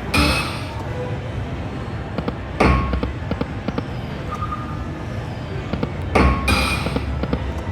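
Huff n' Even More Puff slot machine spinning: a thud with short electronic chime tones comes near the start, about two and a half seconds in, and again about six seconds in, over a steady background din.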